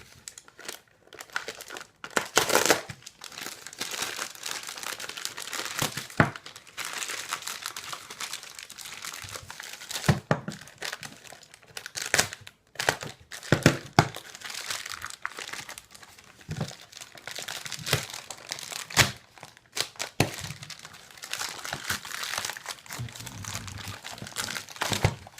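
Packaging being crinkled, rustled and torn open by hand, a steady crackling with scattered sharper snaps and knocks throughout.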